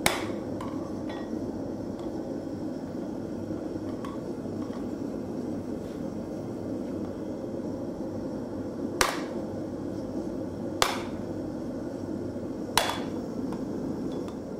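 Hand hammer striking a set hammer held on a steel skillet blank: four sharp metallic blows, one at the start and three about two seconds apart near the end. A steady rush, likely from the running gas forge, continues underneath.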